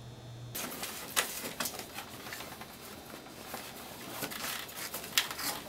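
Plastic wrapping rustling and crinkling as a large plastic-wrapped model vehicle is handled and lifted out of its styrofoam packaging tray, with scattered small clicks and knocks.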